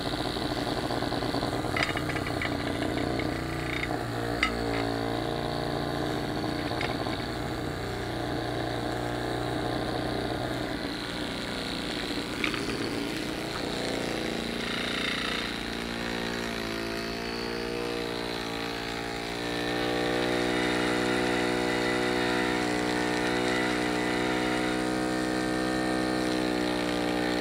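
Small brass model steam engine (Microkosmos, 6 mm bore, rotary-valve steam distribution) running fast on live steam, a steady mechanical buzz. About two-thirds of the way through it speeds up, its pitch rising and the sound growing a little louder, then it holds at high revs. A few light clicks come in the first half.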